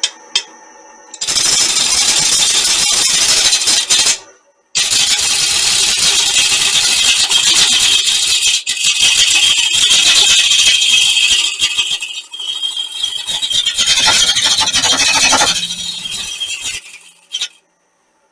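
Turning gouge cutting the inside of a spinning olive wood bowl on a lathe, a loud continuous hissing scrape of the tool shearing off shavings. It stops briefly about four seconds in, then goes on and tails off near the end.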